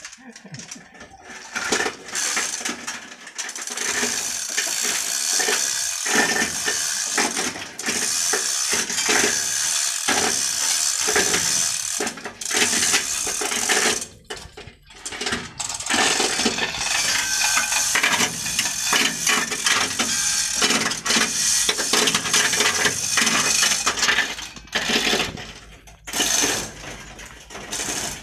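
Manual chain hoist being worked to lift a truck's diesel engine: the chain rattles and clinks through the hoist in long runs broken by a few short pauses.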